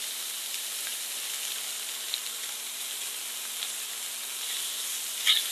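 Tofu, cabbage and onion frying in a stainless steel frying pan, a steady sizzle, with a few faint ticks of a wooden spatula as the crispy tofu pieces are turned, and one brief louder sound near the end.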